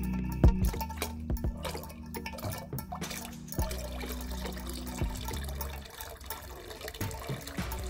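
Water running and dripping through the clear plastic tube of a miniature diorama hand pump as its handle is worked, with small sharp clicks scattered through.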